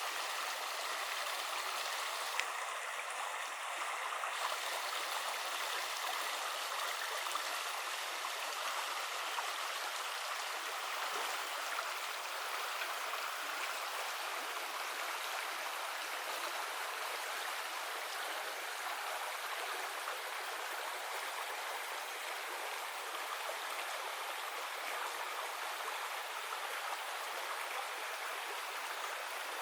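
Clear mountain river water flowing in a steady, even rush.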